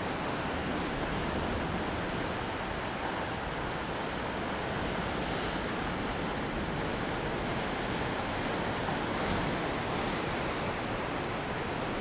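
Ocean surf breaking and washing in over rocks and old concrete ruins: a steady rush of water.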